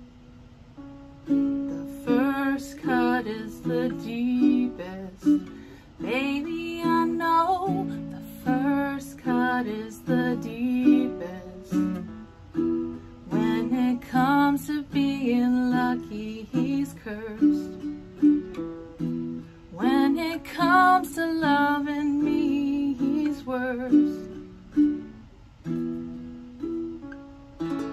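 Baritone ukulele strumming chords steadily, without singing.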